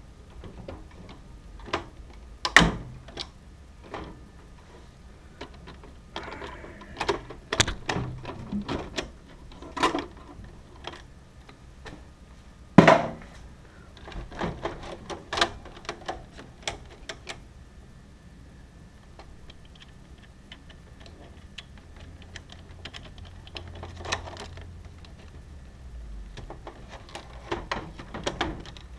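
Irregular clicks, taps and knocks of things being handled, with two louder knocks about two and a half and thirteen seconds in, over a faint steady hum.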